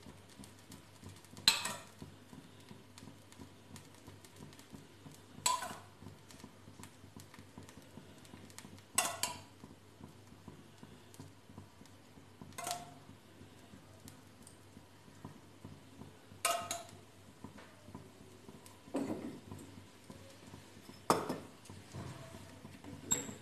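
Metal kitchen utensils clinking and knocking against the cookware, one sharp ringing clink every three to four seconds, as ghee is spread on sandwiches on an iron tawa with a steel spoon; the last couple of knocks near the end are duller, as from a wooden spatula, over a faint steady hum.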